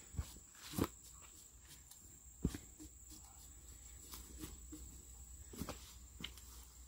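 A steady high-pitched insect drone, with a few short knocks and scuffs from footsteps on sawdust and leaves. The sharpest knocks come about a second in and again about two and a half seconds in.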